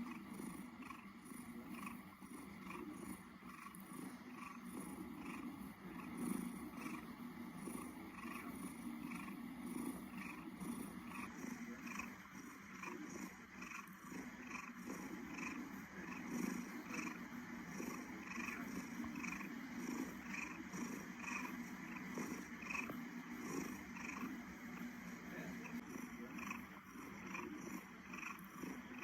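A domestic cat purring steadily, the purr swelling and easing in a slow, even rhythm.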